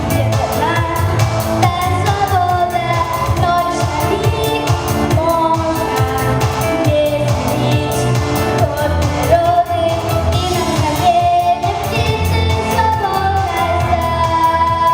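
A female vocalist singing a pop song over instrumental backing with a steady, heavy low beat.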